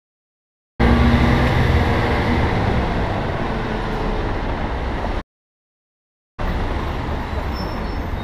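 Steady outdoor street noise with a low rumble of traffic, picked up by a GoPro's microphone while walking. It is broken by two stretches of complete silence, at the start and again about five seconds in, where the sound drops out entirely.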